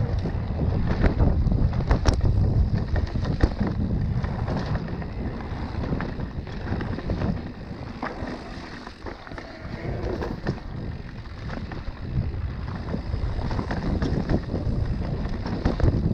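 Wind rushing over the microphone and tyres rolling on a dirt trail as a mountain bike is ridden downhill, with scattered knocks and rattles from the bike over bumps.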